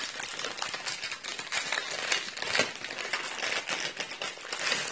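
Thin plastic sweet wrappers crinkling and crackling as they are handled and pulled open by hand, in a dense run of small crackles and clicks.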